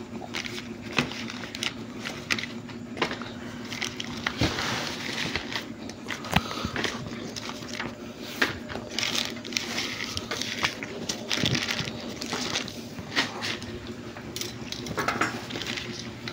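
Clear plastic packets of small diesel-engine spare parts crinkling as they are handled, with scattered light clicks and knocks from the parts being moved.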